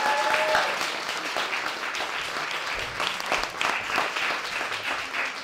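Small audience applauding, with a short whoop right at the start; the clapping eases off a little toward the end.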